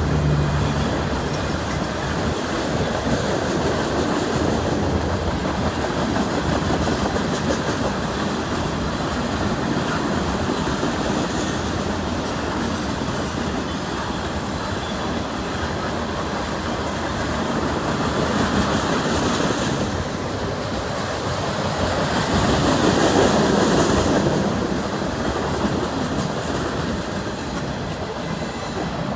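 CN freight train's cars rolling past on the rails, a steady clattering rumble of wheels over the track that swells twice in the last third.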